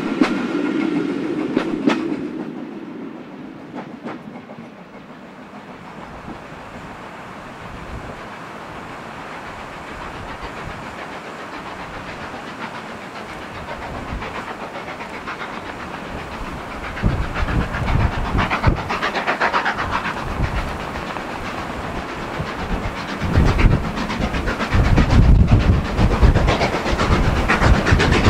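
Coaches of a steam-hauled train rolling past, their wheels clicking over the rail joints and fading away. A LNER K1 class 2-6-0 steam locomotive then approaches working hard, its exhaust beats growing louder from about two-thirds of the way in.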